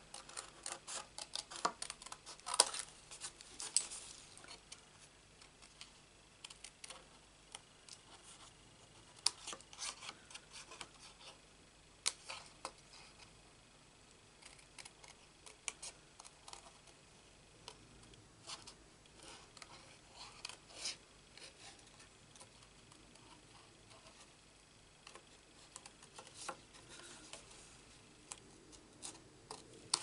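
Small paper snips cutting closely around a stamped image in cardstock: quick, faint snips in clusters with short pauses between.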